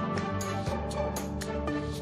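Instrumental background music: held notes over a steady ticking beat, about four ticks a second.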